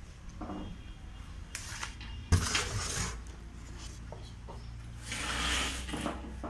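Handling noises: a few light knocks and rustling, with one sharp knock a little over two seconds in and a longer hissing rustle around five seconds in.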